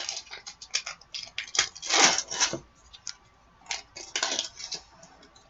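Foil trading-card pack wrappers crinkling and crackling as they are handled and torn open. The crackles come in short irregular bursts, loudest about two seconds in and again a little after four seconds.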